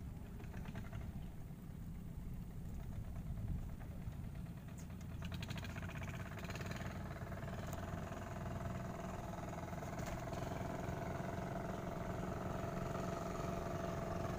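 Engine of a motorized bangka running steadily as the boat passes, growing louder over the second half.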